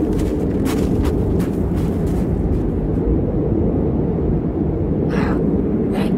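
A loud, steady low rumble, with a run of sharp clicks over the first two and a half seconds and a short hiss about five seconds in.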